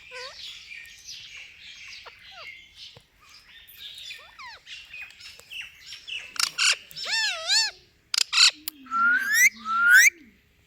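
Indian ringneck parakeet calling: soft, busy chirping at first, then from about six seconds in loud, shrill calls with wavering and rising whistles.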